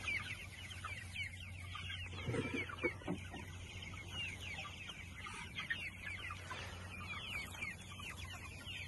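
A flock of young white broiler chickens peeping continuously in short, falling chirps, with a few soft low knocks about two seconds in.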